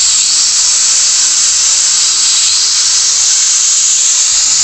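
AG-1218 corded angle grinder running steadily at full speed with no disc fitted: a loud, even, high-pitched whine and hiss from the motor and bare spindle.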